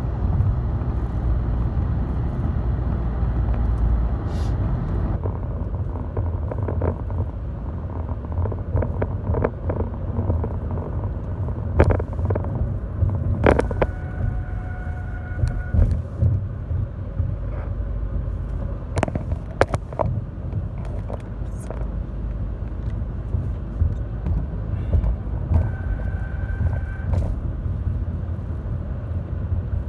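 Car cabin road noise: a steady low rumble from a moving car, with scattered knocks and a brief steady tone heard twice.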